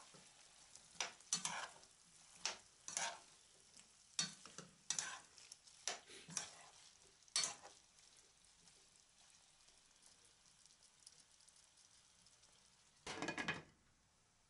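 A metal spoon stirring and scraping chicken and vegetables frying in a deep nonstick frying pan, in a dozen or so short strokes over the first seven seconds. Just after thirteen seconds a glass lid is set on the pan with a brief clatter.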